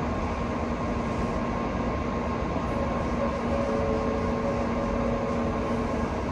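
N700-series Shinkansen standing at the platform, its onboard equipment giving a steady hum with a constant low tone. About three seconds in, a couple of steady higher tones join.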